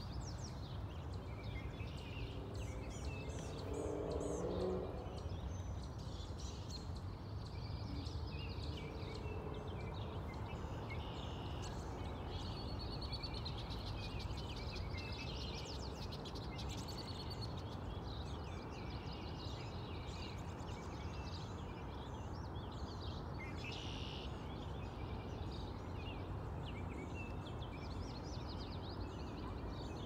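Several wild songbirds chirping and trilling from the trees, many short calls overlapping, over a steady low outdoor rumble. A brief lower sound stands out about four seconds in.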